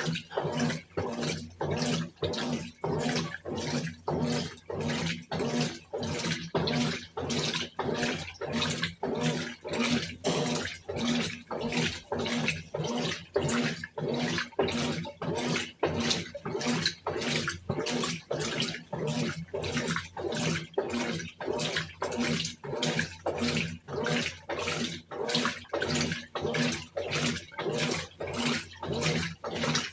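Brastemp Tira-Manchas Advanced 17 kg BWK17 top-loading washing machine agitating a load in water, sloshing back and forth in an even rhythm of about two strokes a second, with a steady motor hum beneath.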